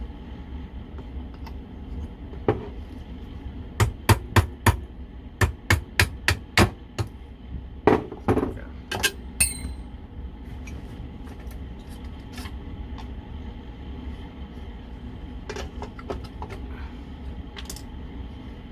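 Sharp taps and knocks on the evaporative-cooler water pump's housing as its motor is worked off the shaft and out: a quick run of about a dozen hits from about four to ten seconds in, then scattered lighter clicks.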